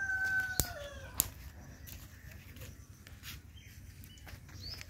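A rooster's crow ends on its long, slowly falling last note about a second in. Over it and after, a twig fire crackles: two sharp pops early on, then faint scattered crackles. A bird gives a short rising chirp near the end.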